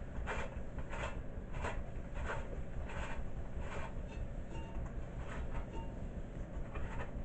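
Light clicks and rubbing, about one every two-thirds of a second, from a Briggs & Stratton recoil starter's pulley and housing being worked by hand with its spring wound up.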